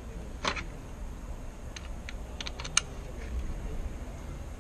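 A few light, sharp plastic clicks and taps as a KMC wall sensor and its Cat 6 cable are handled and fitted together: one about half a second in, then a quick cluster past the middle, the sharpest near the end of it.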